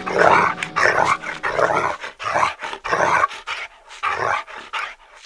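A dog barking over and over in short, rough barks, about two a second, growing quieter toward the end.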